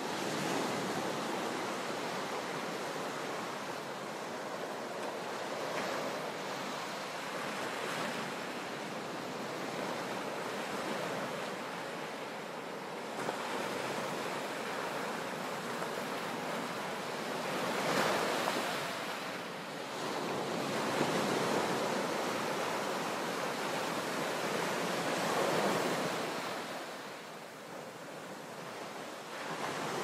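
Sea waves crashing into a sea cave: a continuous wash of surf with several louder surges in the second half, easing off briefly near the end.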